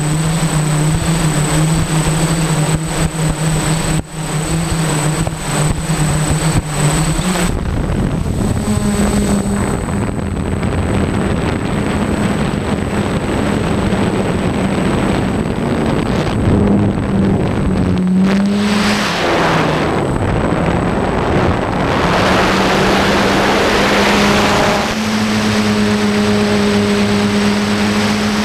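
DJI F550 hexacopter's six electric motors and propellers running with a steady hum, heard through the onboard camera with heavy wind rush on the microphone. The motors are working hard to hold position against strong high-altitude wind. About seven seconds in, the thin high whine stops and the wind rush grows. The motor pitch dips and rises briefly midway through.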